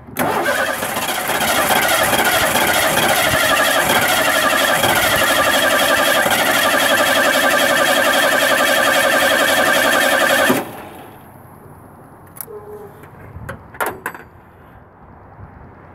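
Ford 232 V6 cranked on its starter for about ten seconds without catching. The starter whine rises at first, holds steady, then cuts off abruptly, with a couple of faint clunks after. The owner puts the no-start down to fuel leaking from the freshly rebuilt Motorcraft 2150 carburetor.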